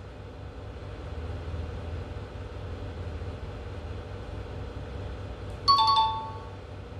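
Tablet learning app playing a short two-note descending chime about six seconds in, as the answer is filled into the addition sum. Before it there is only a low steady hum.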